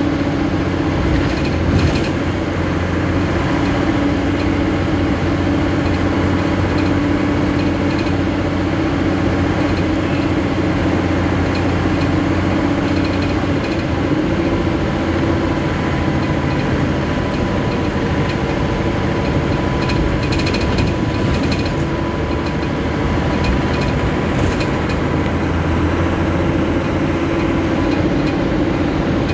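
A vehicle engine running steadily with a constant low drone, joined by short mechanical rattles and clicks about two seconds in and again around twenty seconds in.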